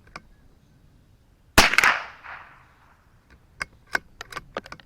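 A single .22 LR rifle shot from a CZ 457 bolt-action rifle, a sharp crack with a short echo, about a second and a half in. About two seconds later comes a quick run of light metallic clicks as the bolt is worked to eject the case and chamber the next round.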